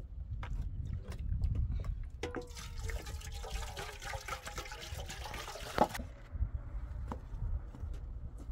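Water pouring from a plastic water container into a metal cooking pot, starting about two seconds in and stopping about four seconds later with a sharp knock. Before the pour come a few light clicks and knocks of the containers being handled.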